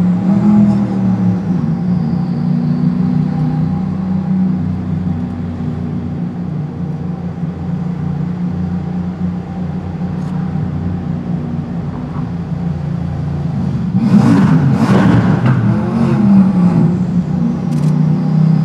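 Gumpert Apollo S's 4.2-litre twin-turbo V8 running steadily at low revs inside a road tunnel. About fourteen seconds in it is revved hard in two short surges, its pitch rising.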